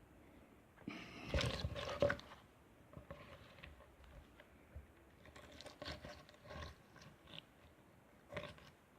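Slime being squished and worked by hand, a louder stretch of sticky squelching between about one and two seconds in, then scattered small pops and clicks.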